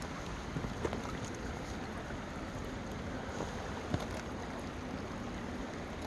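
Steady rushing of a stream running high with snowmelt, with a couple of faint knocks, about one second in and about four seconds in.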